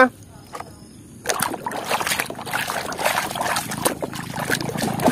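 Water splashing and sloshing in a tub as a hand swishes muddy toys around in it, starting about a second in.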